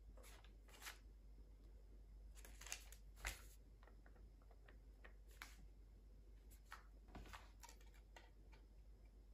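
Faint rustling of paper receipts being handled and a pen writing in a notebook: a handful of short, soft scratches and rustles, the sharpest about three seconds in.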